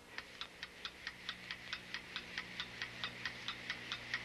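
Clock ticking sound effect: quick, even ticks about four or five a second that grow a little louder, marking time passing. A faint steady hum lies underneath.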